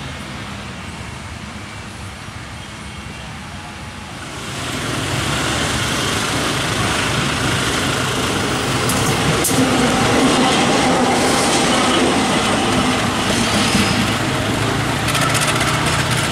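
Diesel locomotive of Indonesian railways (KAI) running on the track, a loud, steady engine hum with a few sharp clicks. It comes in abruptly about four seconds in, after quieter background noise.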